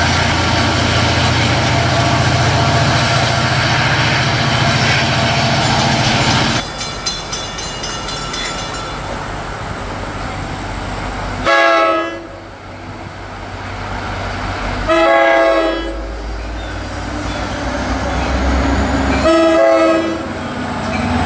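An approaching NJ Transit diesel locomotive sounds its horn in three separate blasts, the first short and the later two longer. The train's low rumble builds as it nears. Before that, a steady engine drone cuts off suddenly about six seconds in.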